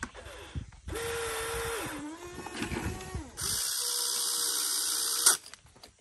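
Geared electric motors of a Huina RC excavator whining as the boom and bucket move. A first run starts about a second in and drops lower in pitch partway through, with some crackling. A second, louder run follows and cuts off suddenly with a click.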